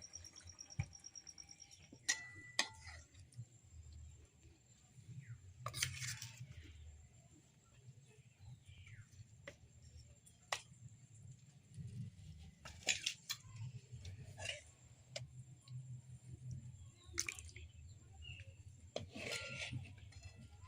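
Scattered clinks and knocks of cooking utensils at a pot, with a few faint bird chirps over a low rumble.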